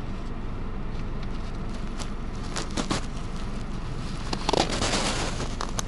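Car cabin noise while driving: a steady low rumble of the tyres and engine. From about four and a half seconds in, crackling and rustling handling noise from the handheld camera rubbing near the microphone.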